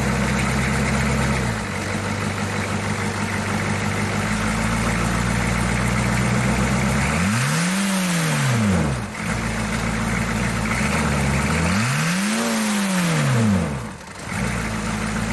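1982 Chevy C10's 6.2-litre V8 diesel engine idling, then revved twice, the pitch rising and falling back to idle each time over about two seconds.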